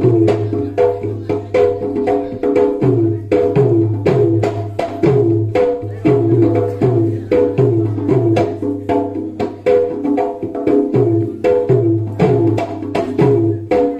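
Manipuri folk dance music: a dholak beats a steady rhythm, its bass strokes sliding down in pitch, under a woman's sung melody.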